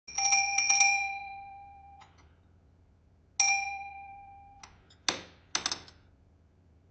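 Café door bell jangling as the door opens: a quick cluster of strikes rings out and cuts off suddenly, then a single ring a few seconds in, also cut short. Two sharp clunks follow near the end.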